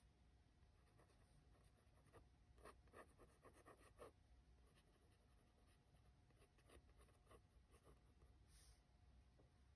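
Faint scratching of a Pentel GraphGear 500 mechanical pencil's graphite on paper, in short shading strokes, with a thicker run of strokes a few seconds in.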